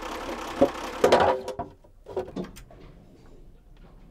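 Boat's diesel engine running, with a loud clatter about a second in, then the running noise cuts off suddenly. Scattered light clicks and clinks of hands and tools on the engine's injector lines follow.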